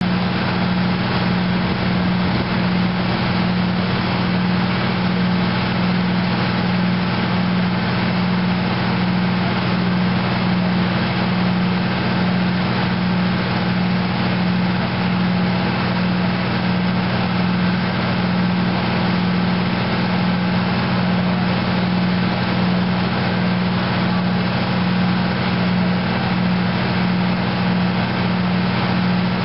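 Fire engine's diesel engine running steadily: a loud, even drone with a strong low hum that does not change.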